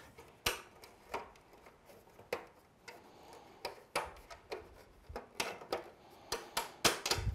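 Hard plastic parts of a vintage Mattel Snake Mountain playset clicking and knocking as a hand works at a small door that won't open. The clicks come irregularly, about two a second.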